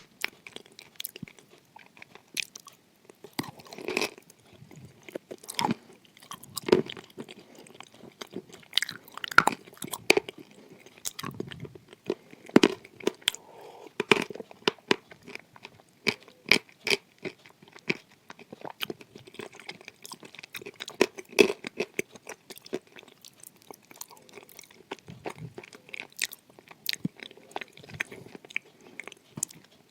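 A person biting and chewing crunchy edible clay, many sharp irregular crunches following one another without pause.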